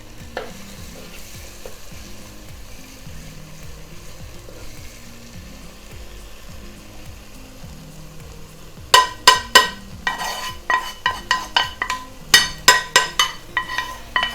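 Onion-tomato masala sizzling gently in a heavy pot. From about nine seconds in, a metal spoon knocks and scrapes against the pot in quick ringing strikes as spice powders are stirred into the masala.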